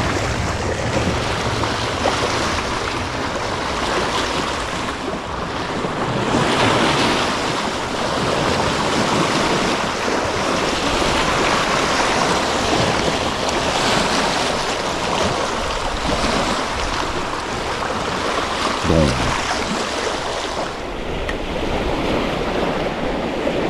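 Small waves washing and splashing over rocks along the shoreline, a steady surf that swells and eases.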